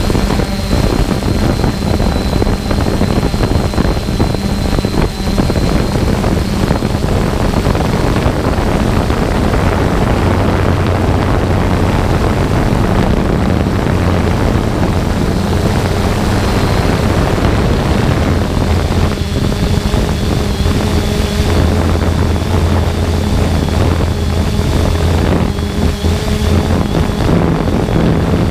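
3DR Solo quadcopter's electric motors and propellers running steadily in flight, heard close up from the drone's own camera: a loud whir with a thin high whine above it.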